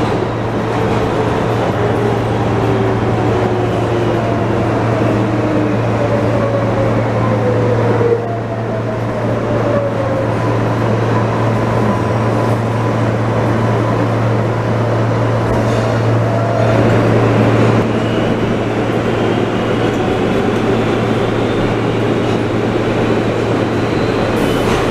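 New York City subway train running, heard from aboard: a continuous rumble of wheels on track under a steady low hum, with the electric motors' whine falling in pitch over the first eight seconds as the train slows.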